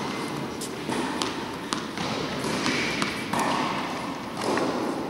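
Scattered sharp pops of tennis balls being struck and bouncing in a large indoor tennis hall, over a steady hall hum.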